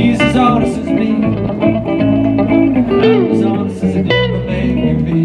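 Live band of electric guitars and bass guitar playing an instrumental passage, a lead guitar running quick notes with bent notes about three seconds in.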